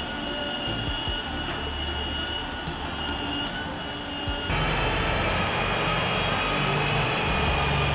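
A motor-driven machine running steadily, a hiss with a held whine, growing louder and rougher about four and a half seconds in.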